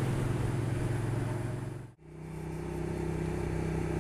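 Steady engine and road drone of a moving motor vehicle, heard as a low even hum. It fades out about two seconds in and fades back in at a slightly higher pitch.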